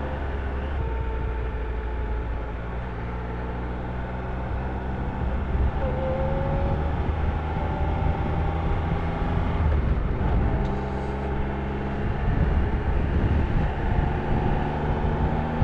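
Triumph Trophy 1200SE's 1215 cc three-cylinder engine running steadily at low road speed behind traffic, with wind and road noise, growing a little louder about a third of the way in.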